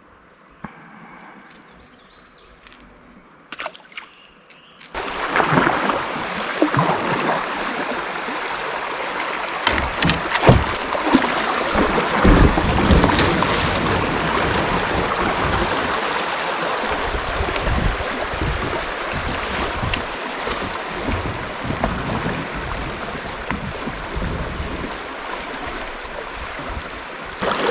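Water sloshing and gurgling against a kayak, with a scatter of sharp knocks, starting suddenly about five seconds in after a few seconds of near-quiet with faint clicks.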